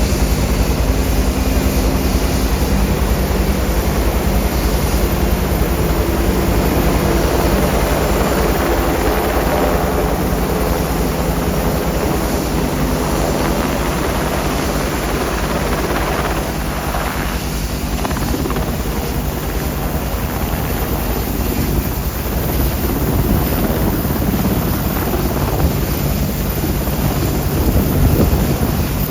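UH-60 Black Hawk helicopter's rotor beating and turbine engines running, loud and steady.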